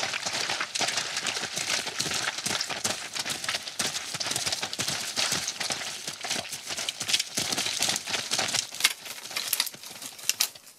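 Foley of branches and brush being worked: dense crackling and rustling with many sharp snaps, standing in for a zebra pushing through vegetation. It runs continuously and stops abruptly just before the end.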